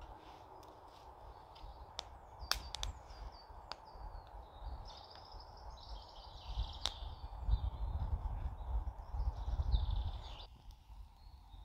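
Woodland birdsong: a warbling song for several seconds in the second half. Before it there are a few sharp clicks, and under it a low rumble that swells near the end, then cuts off abruptly along with the song.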